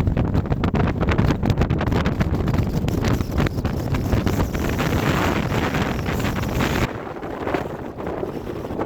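Strong mountain wind buffeting the microphone in a heavy, gusting rumble. About seven seconds in the deep rumble drops away suddenly, leaving a thinner hiss.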